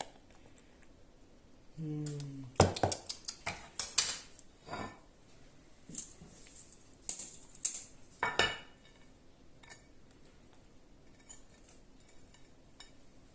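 Kitchen utensils clinking and scraping against a bowl and dish as cream cheese frosting is handled: a scattering of short, sharp knocks, loudest a few seconds in, with lighter taps near the end.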